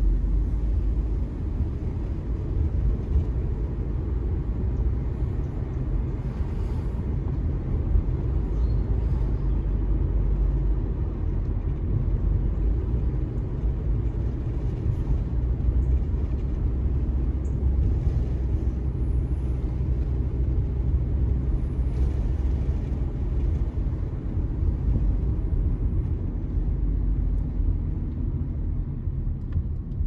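A car on the move: a steady low rumble of road and engine noise.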